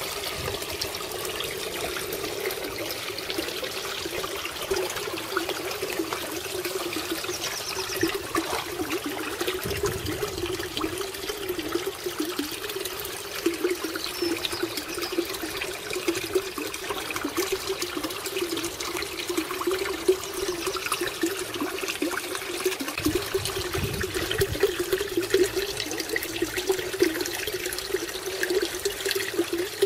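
Koi pond filter return water splashing and trickling steadily into the pond, a continuous rushing, gurgling flow.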